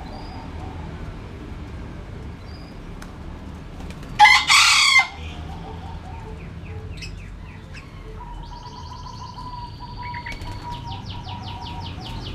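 A chicken gives one short, loud crow-like call about four seconds in. From about eight seconds on, small birds chirp in quick repeated notes over a thin steady whistle.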